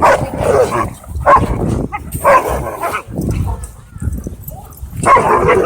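Dogs barking in several short, loud outbursts with gaps between them.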